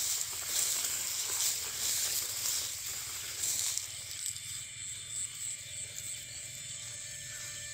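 Footsteps swishing and rustling through tall grass, swelling about once a second. About four seconds in the rustling fades and a steady high-pitched trilling of several tones is left.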